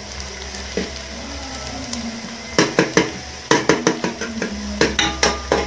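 A metal utensil stirring frying onions in an aluminium pot, scraping and knocking against the pot's sides and bottom, with the onions sizzling. One knock about a second in, then from about halfway a quick run of sharp clacks.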